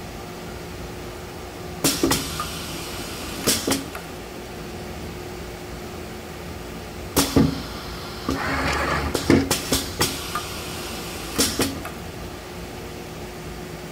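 Sock printing machine running with a steady hum, its mechanism clacking sharply about six times at uneven intervals, with a short hiss about eight seconds in.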